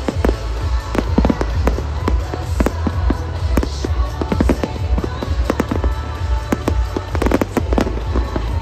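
Aerial fireworks bursting in many sharp, irregular bangs, with a dense run of bangs about seven seconds in. Music with a heavy bass plays underneath.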